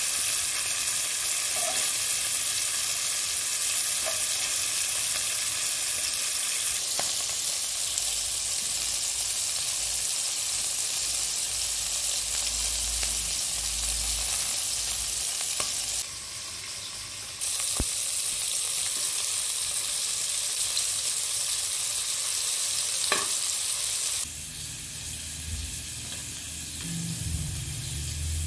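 Chicken pieces on skewers frying in hot oil in a pan, a steady sizzle with a few light clicks. The sizzle drops away near the end.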